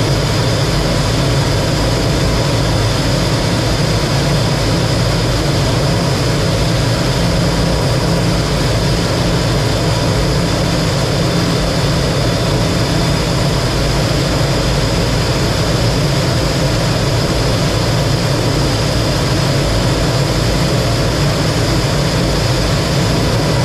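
Lockheed T-33 jet trainer's single Allison J33 turbojet running steadily, heard as a loud, even rush of noise with a high steady whine over it.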